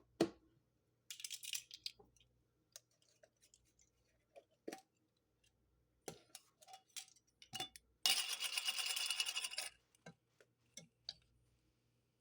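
Scattered light clicks and taps from a measuring spoon and spice containers while onion powder is measured out. Near the end comes a louder, rough, noisy rustle lasting about a second and a half.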